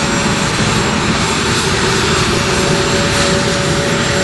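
A-10 Thunderbolt II's General Electric TF34 turbofan engines running as the jet taxis, a loud steady jet rush with a steady whine over it.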